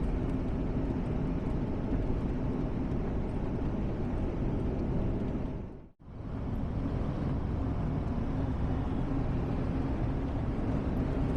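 Steady road and engine rumble of a car driving, fading out briefly about six seconds in and coming back.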